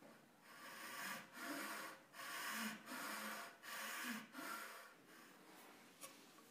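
A round file rasping along a walnut blank in about five long strokes, with short pauses between them. A light click follows near the end.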